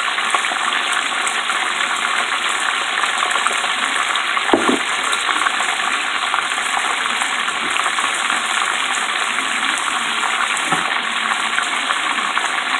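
Crab legs deep-frying in a large pot of hot oil: a steady, dense sizzling and crackling of oil bubbling hard. A brief dull bump sounds about four and a half seconds in.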